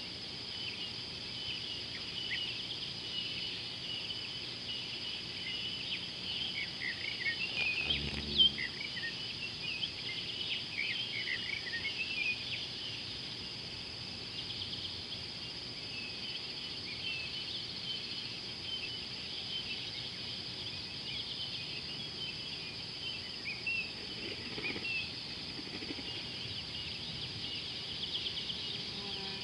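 Dusk chorus in African bush: a steady high-pitched insect drone with many short chirps over it, busiest in the first third. About eight seconds in there is a brief low sound ending in a sharp click.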